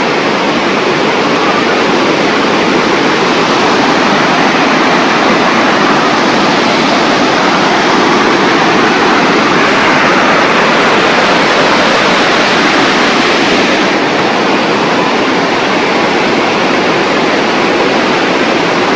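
Waterfall's rushing water: a loud, steady wash of noise, swelling slightly about halfway through.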